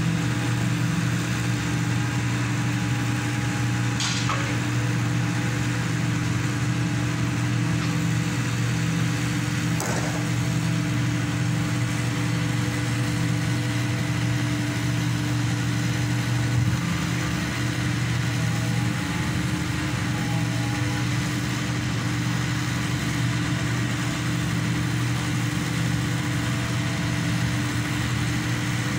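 Engine of a hydraulic static pile driver running steadily, a constant low drone with no change in speed.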